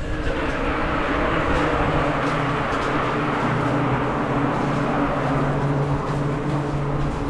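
Bicycle rolling along a concrete trail, heard from a bike-mounted action camera: steady tyre and wind rush with a low hum underneath.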